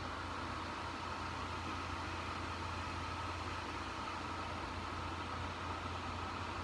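Dyson AM09 bladeless fan heater running steadily in heat mode: an even rush of air over a low hum, with a faint steady higher whine.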